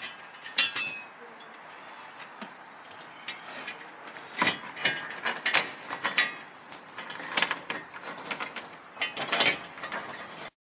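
Metal cargo-rack bracket and mounting plate being handled and fitted by hand: irregular clicks, knocks and rattles of metal parts, in a few clusters, over a steady faint hiss. The sound cuts off suddenly near the end.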